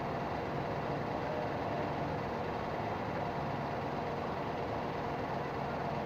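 Steady background noise with a faint low hum, even in level throughout, with no distinct events.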